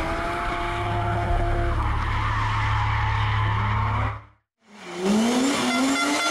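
Rally car engine running hard with tyre squeal and skidding noise, cut off abruptly at about four and a half seconds. Then a BMW 3 Series rally car's engine revs in a few rising bursts as the car slides through a bend.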